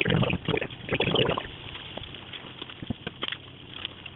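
Spoon stirring a thick sauce in a frying pan, with sloshing and scraping strokes in the first second and a half, then fainter with a few light taps.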